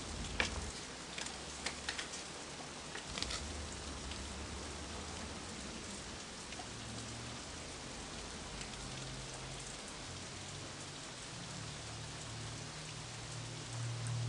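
Steady rain ambience, an even hiss, with a few crisp crinkles of paper being handled in the first few seconds. A low droning music tone swells in near the end.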